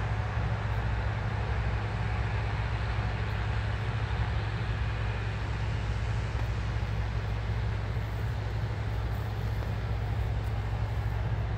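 New Holland combine harvester running steadily while harvesting wheat: a constant low drone of its engine with an even wash of mechanical noise over it.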